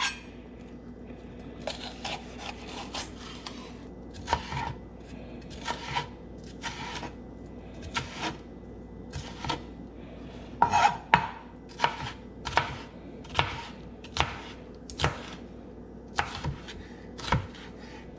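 Chef's knife slicing and dicing a bell pepper on a plastic cutting board: irregular sharp knife strikes on the board, about one or two a second, with a quicker run of strikes near the middle. A faint steady hum sits underneath.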